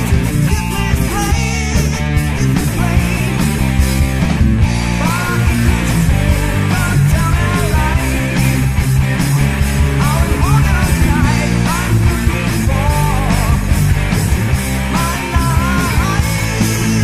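Heavy rock band playing a loud, dense passage with electric guitars, bass and drums, and a melodic line gliding between notes above them. It is an early, embryonic-stage studio demo recording of the song.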